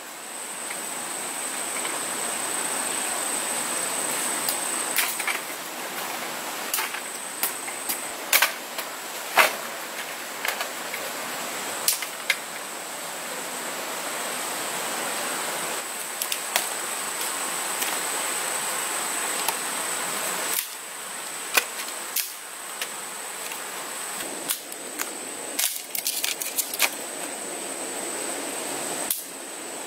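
Scattered sharp knocks and clicks of hand work with a knife and stones, over a steady high insect drone and an even rushing hiss.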